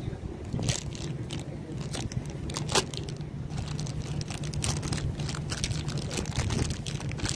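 Crunchy snack chips being bitten and chewed up close to the microphone, a run of sharp irregular crunches, over a steady low hum.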